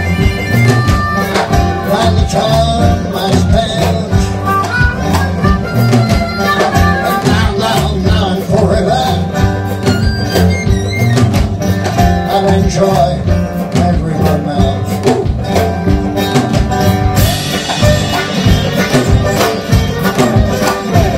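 Live blues band playing an instrumental break: harmonica carrying the melody over guitar, upright double bass and drums keeping a steady beat.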